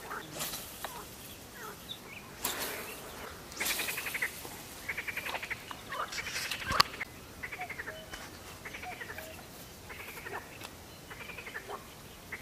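A string of short, buzzy animal calls, about one a second, with a single sharp click about seven seconds in.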